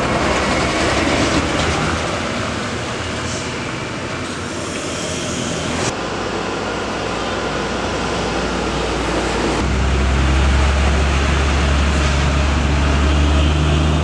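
Road traffic and vehicle engine noise. About ten seconds in, a low, steady engine drone comes in and holds.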